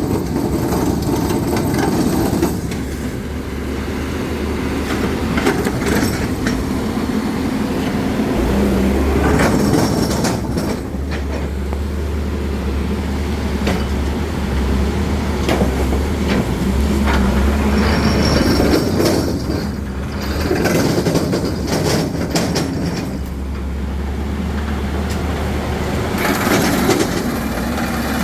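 Drill rig's engine running with a steady low rumble under repeated irregular metallic clattering and knocking.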